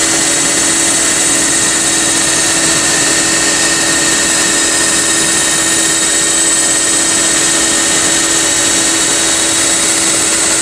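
A metalworking machine running steadily while a steel bar feeds through its guide rollers: a constant motor hum with a high hiss that holds the same throughout.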